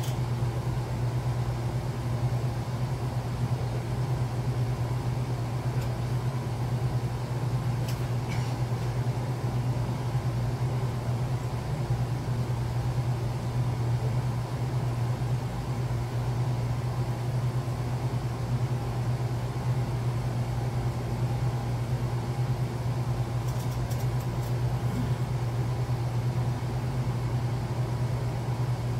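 Steady low machine hum with a few faint higher steady tones above it. There are a couple of faint clicks, one about eight seconds in and another later.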